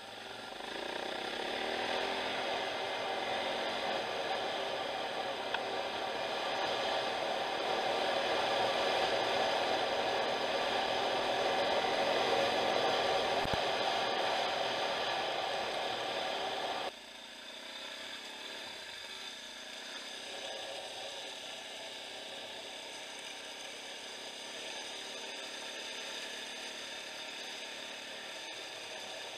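Dirt bike engine running while riding along a gravel track, heard from on the bike, mixed with tyre and wind noise. The sound gets suddenly quieter about 17 seconds in.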